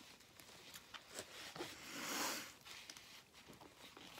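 Faint mealtime handling sounds: scattered small clicks and taps, with a short rustling swell about two seconds in, typical of a paper napkin being used.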